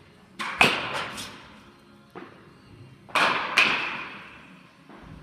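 A baseball bat hitting pitched balls, twice: each hit is a sharp crack with a ringing tail, coming just after a softer knock.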